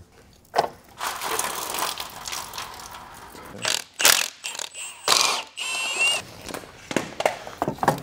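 Hand-tool work on an engine: metal clinks, clicks and knocks of wrenches and bolts, with a spell of hissing noise about a second in and a short squeak a little after the middle.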